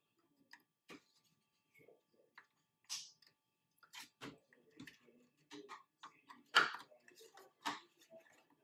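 Plastic trim clips on a truck grille's back cover snapping loose as a pry tool works along them: a string of irregular sharp clicks and snaps, with the loudest snap about two-thirds of the way through.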